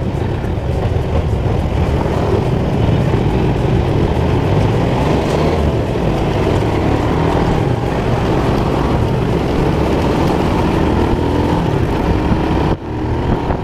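Motorcycle engine running as the bike pulls away from a stop and rides on through traffic, with other motorcycles around it. There is a brief sudden drop near the end.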